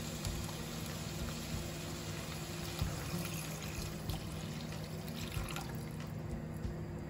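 Tender coconut water poured from a glass into a hot pan of sautéed chicken, splashing steadily into the pan. The pour tails off about six seconds in.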